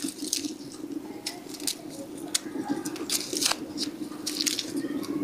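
Garlic cloves being peeled by hand: small, irregular crackles and clicks of papery skin being split and pulled off, over a steady low hum.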